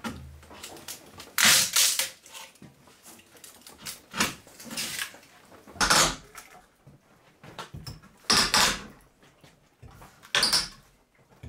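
A pry bar working a wooden batten strip off a log wall: about six short wooden scrapes and knocks, a second or two apart.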